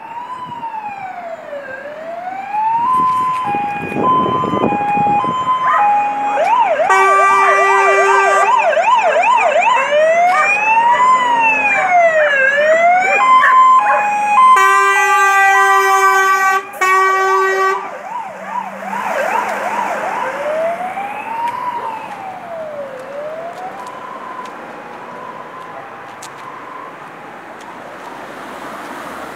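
Fire engines' sirens on an emergency run, cycling through a slow rising-and-falling wail, a fast yelp and a two-note hi-lo tone, with three long horn blasts in the middle. Over the last several seconds the sirens fade as the trucks move off.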